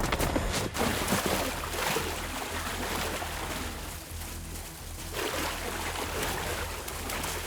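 Water splashing hard as a jaguar lunges onto a caiman, with a second sharp splash under a second in, then continuous churning and thrashing water as the two struggle.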